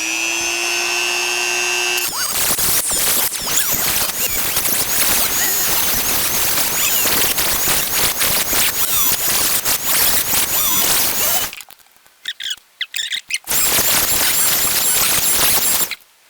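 Dremel rotary tool with a cutting wheel: a steady high whine as it spins free, then from about two seconds in a harsh grinding as the wheel cuts down the small metal retaining tabs on a car door handle. The grinding breaks off about eleven seconds in, comes back in short touches, then runs again until just before the end.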